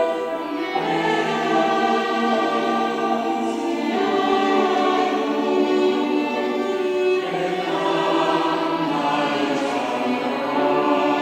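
Church choir singing an anthem in sustained chords that change every few seconds.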